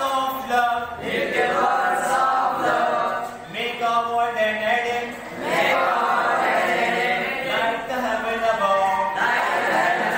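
A class of students chanting a poem aloud in unison with their teacher, reading it line by line with a rhythmic, sing-song lilt.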